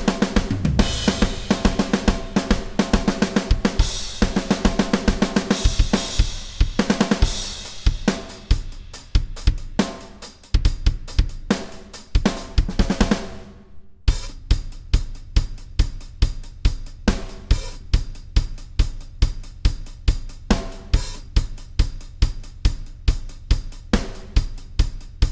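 Drum kit played on its own, with no other instruments: busy, cymbal-heavy playing at first, then sparser hits under a ringing cymbal that cuts off suddenly about halfway, then a steady beat of about two strong hits a second with hi-hat, snare and bass drum.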